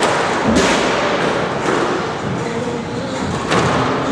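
Squash ball being struck by racquets and hitting the court walls during a rally drill: a series of sharp cracks in a reverberant court. The loudest come about half a second in and about three and a half seconds in.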